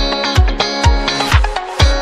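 Background music with a steady electronic kick-drum beat, about two beats a second, and sustained synth tones.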